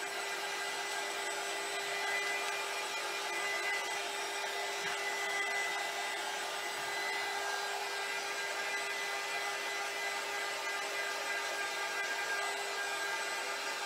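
Handheld craft heat gun blowing steadily with a constant motor hum, drying wet Mod Podge glue under decoupaged scrapbook paper.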